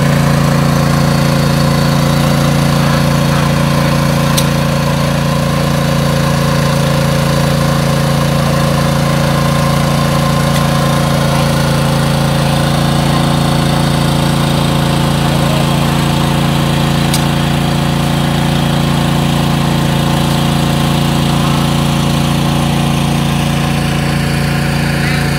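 Small engine driving a water pump, running steadily at a constant speed, loud and unchanging, while the pond is pumped out.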